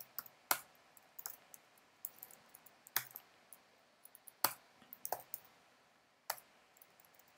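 Computer keyboard keys clicking as code is typed: irregular single keystrokes with short pauses between them, a few strokes louder than the rest.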